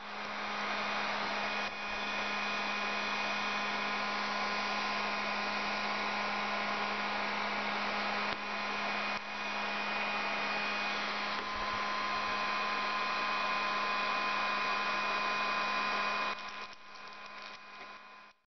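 Electric heat gun running steadily: a blowing hiss with a constant hum, as it heats a motorcycle's plastic fairing to soften decal adhesive. The sound drops in level about two seconds before the end.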